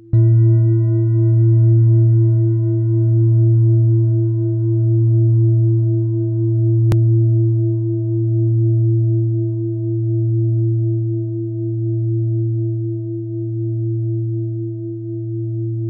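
Large Buddhist singing bowl struck once, then ringing with a deep, steady tone and a slow wobble in loudness as it gradually fades. A faint click about seven seconds in.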